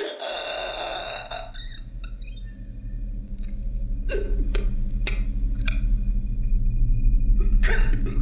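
A low, dark score drone that swells steadily louder, typical of suspense sound design. It opens on a short rush of breathy noise, and a few sharp clicks fall over it in the second half.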